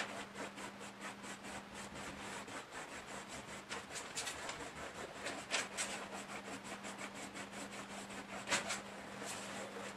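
Back-and-forth scratchy rubbing strokes on a painted backdrop as fresh white acrylic is wiped and smeared out by hand. A few strokes are louder, about halfway through and near the end, over a steady low hum.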